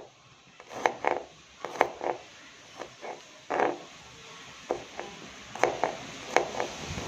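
Kitchen knife cutting garlic cloves on a cutting board: short knocks at uneven spacing, roughly two a second, as the blade goes through each clove and hits the board.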